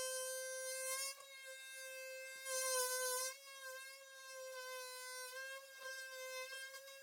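Handheld electric power tool running steadily with a high-pitched buzzing whine; its pitch dips briefly now and then, as if it bogs under load.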